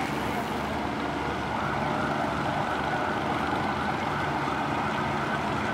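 Steady engine drone of ships running in port, with a steady high-pitched tone joining about a second and a half in.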